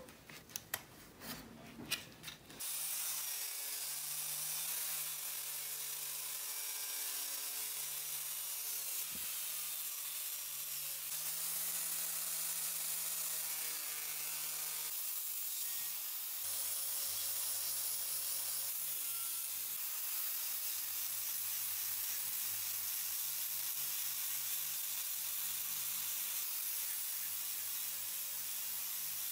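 Angle grinder with a sanding disc running steadily against the wooden handle scales of an old cleaver, a continuous grinding hiss over the motor's hum. It starts about two and a half seconds in, after a few light knocks, and the hum shifts in pitch about halfway through.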